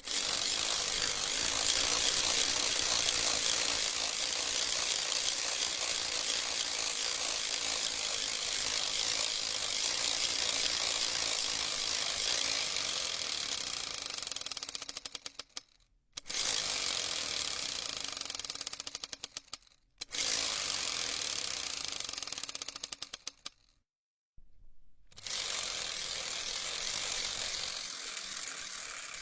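Synthesized rapid-fire laser gun sound effect: long bursts of very fast repeated shots that blur into a harsh rattle, four bursts in all, each thinning out and cutting off before the next begins.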